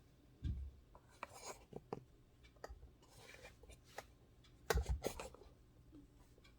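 Hands handling a computer power supply's cooling fan and casing parts: scattered small clicks and rubbing, a low thump about half a second in, and a louder clatter of parts near five seconds.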